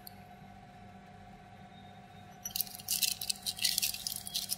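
Small metal remedy pieces being handled and set into holes in a marked plate: a cluster of light clicks and rustling from about halfway through, over a faint steady hum.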